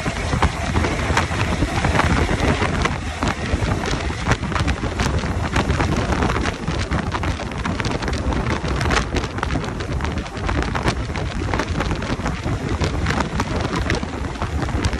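Wind buffeting the microphone over the steady low drone of trucks driving on a wet highway, with dense crackling from rain or road spray throughout.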